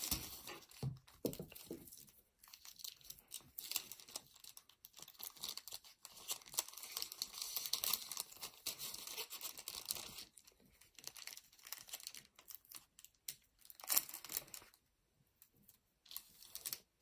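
Crinkling and rustling of a foil booster pack wrapper and a clear plastic bag as the pack is slid into the bag, in irregular bursts with quieter gaps and one sharper crackle near the end.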